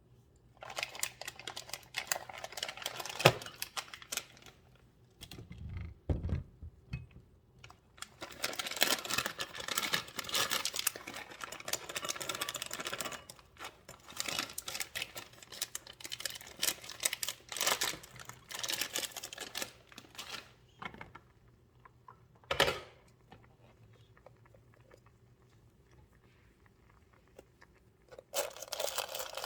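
Kitchen handling noises: repeated bursts of crinkling and rustling, with a sharp knock about three seconds in, another past the middle, and a dull thud near six seconds.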